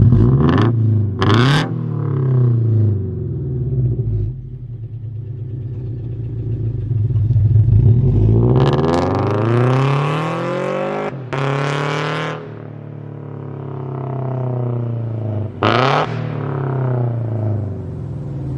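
The 2.0-litre flat-four boxer engine of a Scion FR-S/Subaru BRZ, running through a catless header and straight-pipe exhaust, is revved. There are two quick blips at the start, then a longer rev held for a few seconds about halfway through, and another sharp blip near the end, with the engine dropping back to a lower steady idle in between.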